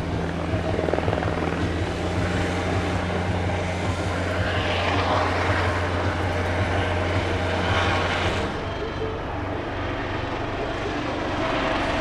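Eurocopter EC120 Colibri helicopters flying a display pass: a steady rotor and turbine drone, swelling twice in the middle, whose low hum drops away about eight and a half seconds in.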